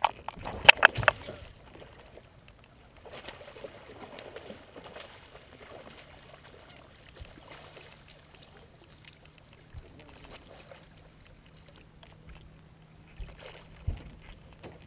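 Knocks and rattles of handling in a fishing boat: a quick cluster of sharp knocks in the first second. Then quiet rustling over a faint steady hum, with a couple of thumps near the end.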